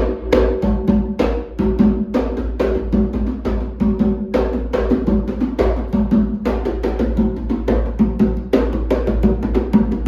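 Rumpi atabaque, a tall Afro-Brazilian hand drum of angelim wood with a goatskin head, played with the hands in a fast, continuous rhythm of strokes. The freshly tuned head rings with a low tone under each stroke.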